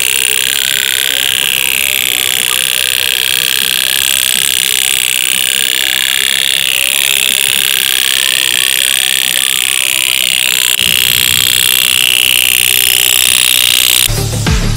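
Toy pop-pop steam boat running: its heated tin diaphragm knocks in a fast, continuous string of pops, a loud buzz that wavers slowly in pitch. Electronic music cuts in near the end.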